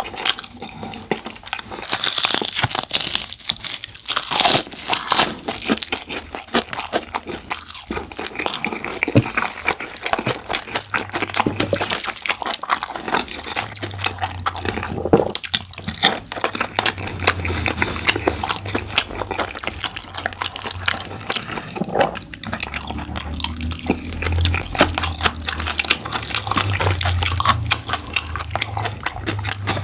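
Close-miked eating sounds: wet chewing and crunching of rice in jajang and curry sauce, with many small mouth clicks and smacks. A low steady hum comes in about a third of the way through.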